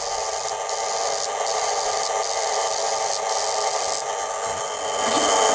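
Antique 1920s violet ray high-frequency device running, its spark gap giving a steady harsh buzz with a few brief crackles. It works but with little power, which the owner puts down to its old paper-and-aluminium-foil condenser.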